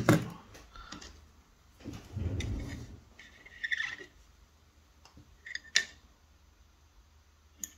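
Small tools and parts being handled on a soldering bench: a sharp click at the start, a dull bump and rub about two seconds in, a short squeak with a click near four seconds, then a few scattered clicks.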